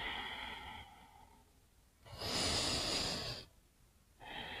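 A woman taking slow, deep cleansing breaths, heard as three separate breaths: one fading out just under a second in, a second from about two to three and a half seconds, and a third starting near the end.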